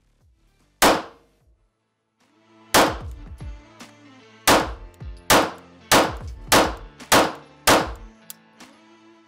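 Eight pistol shots from a compensated, aluminium-frame handgun on an indoor range. The first three are spaced one to two seconds apart and the last five come quickly, a little over half a second apart, each with a short echo.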